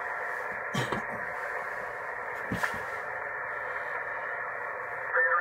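Kenwood TS-480SAT HF transceiver's speaker hissing with band-limited static while receiving on the 20-metre band, with two clicks about one and two and a half seconds in. Near the end, a distant single-sideband voice starts to come through the static.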